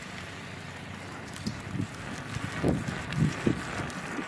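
Wind rushing over a phone's microphone while riding a bicycle, with a few low thumps past the middle.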